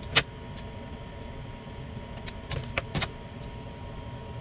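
Tape measure and plastic speed square handled on a bare aluminium plate: one sharp click near the start, then three quick clicks and taps about halfway through, over a low steady hum.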